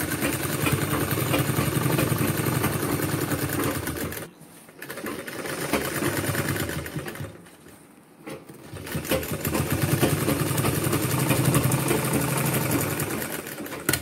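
Sewing machine stitching fabric in three runs of fast, even needle strokes, stopping briefly about four seconds in and again about seven to nine seconds in.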